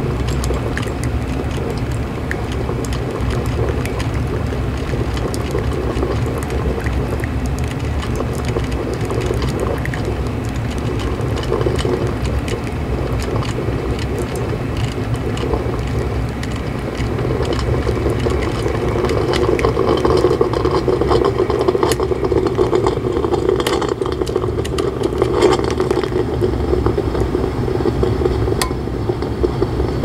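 Black & Decker DCM6 single-cup coffee maker brewing: water boiling and gurgling in its 800-watt heater and trickling into the mug, with steady crackling. It grows louder and more sputtery in the second half as the reservoir runs dry, just before the thermal cutoff switches the unit off.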